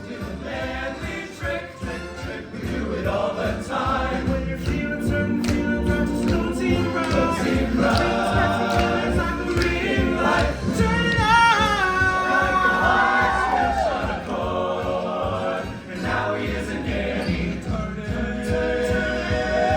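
Music: a choir singing with instrumental backing and a steady low beat, with long wavering held notes about halfway through.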